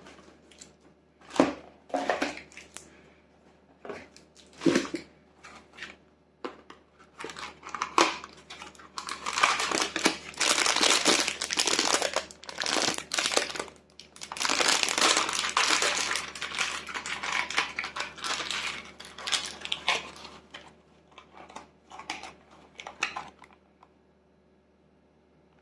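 Packaging being handled and unwrapped: a few knocks and rustles, then a long stretch of steady crinkling and crumpling of wrapping, thinning out to occasional rustles near the end.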